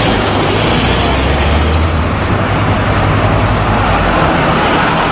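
Double-decker bus driving past: a steady low engine hum under loud road and traffic noise.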